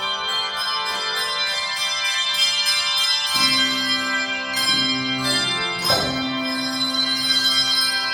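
Handbells playing a tune: quick notes struck in a steady rhythm, each ringing on, over sustained lower bell tones.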